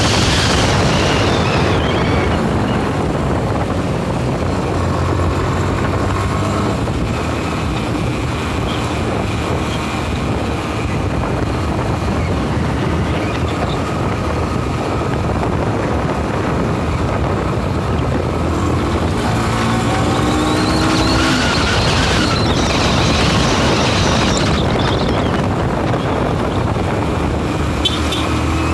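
Motorcycle engine running while riding along a street, with a heavy wind rumble on the microphone. The engine's pitch rises about twenty seconds in as it speeds up.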